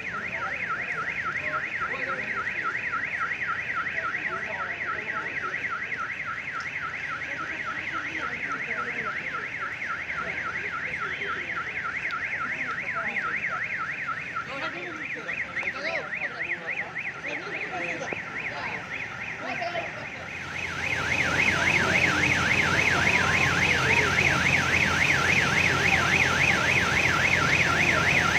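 An electronic alarm or siren with a rapid up-and-down warble that keeps going the whole time, growing louder about three-quarters of the way through, when a broad noise also rises beneath it.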